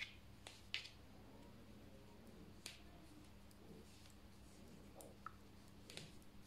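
Metal knitting needles clicking faintly against each other while stitches are worked by hand: a few sharp, irregular clicks over near-silent room tone.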